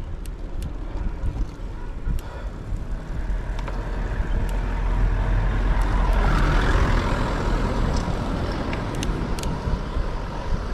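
A motor vehicle on the road passing close by, growing louder to a peak about six seconds in and then fading, over a steady low rumble of wind on the microphone.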